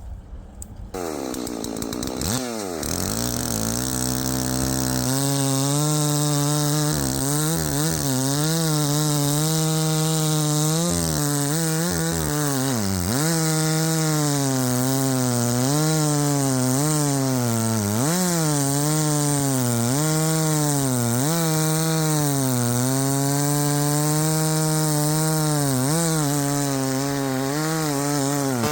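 Husqvarna two-stroke chainsaw starting up about a second in, then running at high revs through the wood, its pitch dipping again and again as the chain bogs down under load in the cut.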